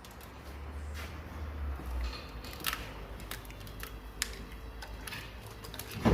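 Scattered metallic clicks and taps of hand tools and parts being handled, with a louder knock at the very end.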